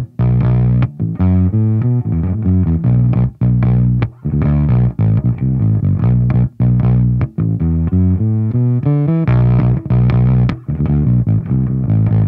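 Electric bass played through an engaged Shu Shu Bass Truck Fuzz pedal: a fuzzed bass riff of quick, separated notes with a few brief gaps.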